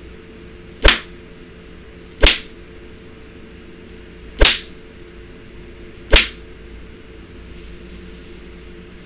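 Four sharp cane strokes landing on bare skin, one every one and a half to two seconds, over a faint steady hum.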